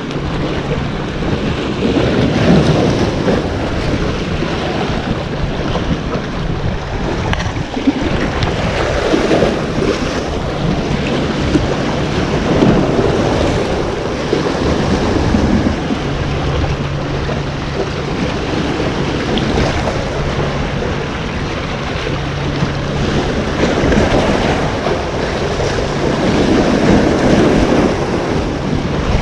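Sea waves surging and breaking over the rocks of a seawall, swelling and easing several times, with wind buffeting the microphone.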